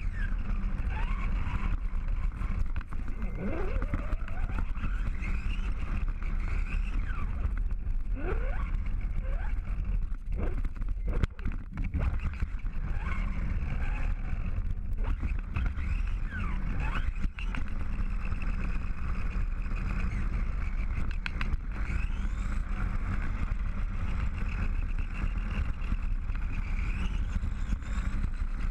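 Onboard sound of a radio-controlled car driving: a steady low rumble, with a motor whine that rises and falls in pitch as the car speeds up and slows.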